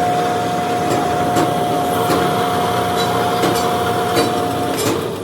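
A workshop machine running with a steady whine over a rough noise, with a few light knocks; the whine cuts off near the end.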